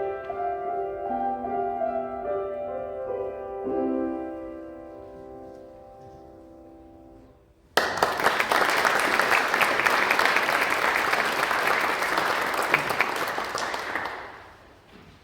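Violins and piano holding the final chords of a piece, which die away over several seconds. About halfway through, an audience breaks into sudden applause, which fades out near the end.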